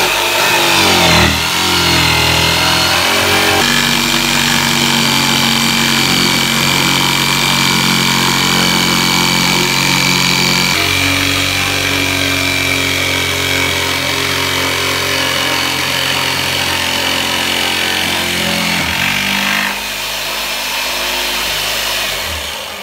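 Black & Decker corded jigsaw cutting through an OSB countertop panel, its motor running loud and steady under load. The sound drops and changes about twenty seconds in, and the saw winds down near the end.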